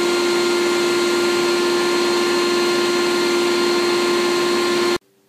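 Dust-extractor vacuum motor of a sandblasting cabinet running, a steady hum over a loud airy rush, cutting off suddenly about five seconds in.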